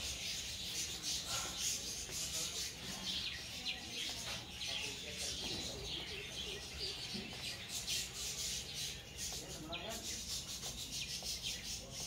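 Continuous scratchy rustling, with a few short, faint bird chirps scattered through it.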